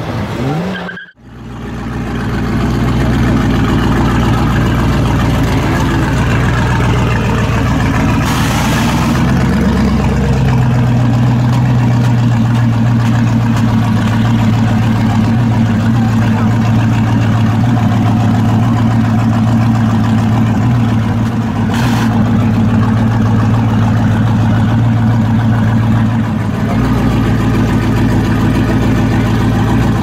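LSX-powered 1965 Chevrolet Impala SS V8 idling with a steady, low exhaust note. The note shifts around ten seconds in and again near the end.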